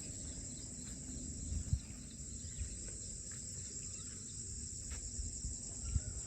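Steady high-pitched chorus of insects, with a low rumble underneath and a couple of soft thumps.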